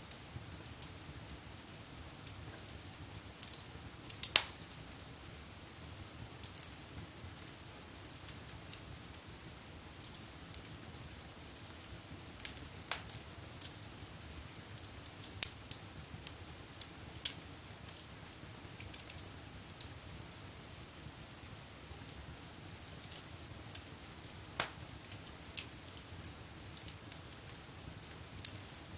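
Wood fire burning in a fireplace, crackling with scattered sharp pops over a low steady rush of the flames. A few pops stand out louder, about four seconds in, midway and later on.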